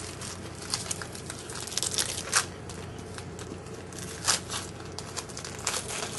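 Foil trading-card pack wrappers crinkling and tearing as cards are handled, heard as scattered short rustles over a steady low hum.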